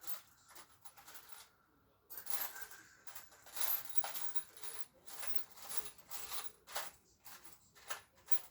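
Small metal parts clinking and jingling as they are handled, a quick irregular run of light metallic clicks with a short pause about two seconds in.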